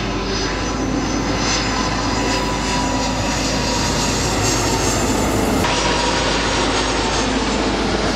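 Jet engines of an Airbus A330 airliner on low final approach, landing gear down: a loud, steady rumble with high whining tones. The sound changes abruptly a little past halfway.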